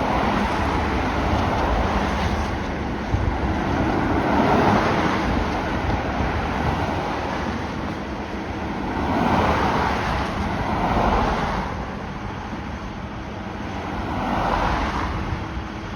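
Fire engine under way, its sound swelling and fading several times.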